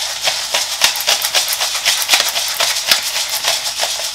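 Hand pepper mill being twisted over a frying pan: quick, uneven rattling crunches of peppercorns, several a second, over a steady sizzle of frying.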